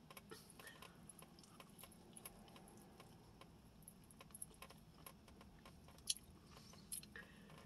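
Faint close-up chewing of a saucy buffalo chicken wing: soft wet mouth clicks and smacks, with a couple of louder clicks near the end.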